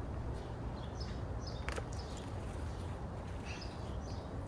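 Faint, scattered bird chirps over a steady low outdoor rumble, with one sharp click a little under two seconds in.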